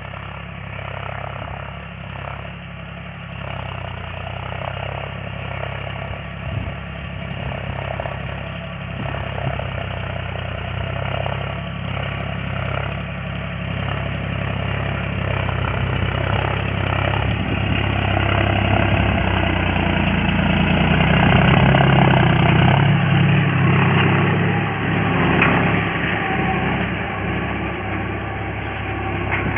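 John Deere utility tractor's diesel engine running steadily under load as it pulls a spring-tine cultivator through the soil. It grows louder as the tractor comes closer, is loudest a little past two-thirds of the way through, then eases off.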